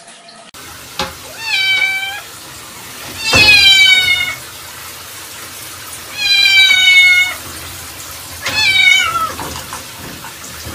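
A domestic cat meowing loudly four times, in long drawn-out calls that drop in pitch at the end. The second call is the loudest.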